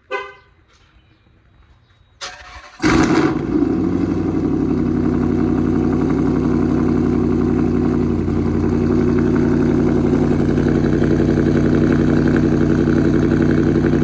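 A short horn chirp at the very start. About two seconds in, the SRT's V8 engine is started from cold: it fires with a sudden loud flare and settles into a steady, loud cold-start idle.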